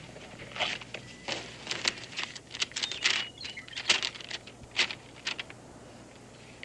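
Papers rustling and crackling as written orders are pulled out and unfolded: a dozen or so short, irregular crackles that die away about five seconds in.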